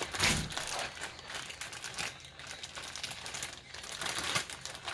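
Plastic bags being handled: irregular crinkling and light clicking, with a soft thump near the start.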